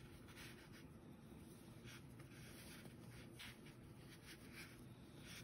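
Faint rustling and scratching of yarn being wrapped by hand around a pipe-cleaner doll's body, in short irregular strokes.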